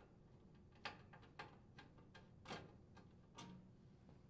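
Faint, irregular metallic clicks and ticks, about six in all, from a Phillips screwdriver working a screw out of a range's sheet-metal top panel.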